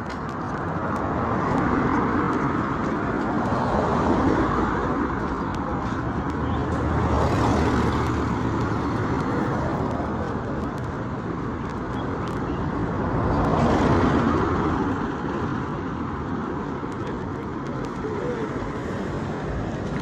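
Road traffic: motor vehicles passing one after another, the noise swelling and fading several times, loudest about four seconds in and again near fourteen seconds.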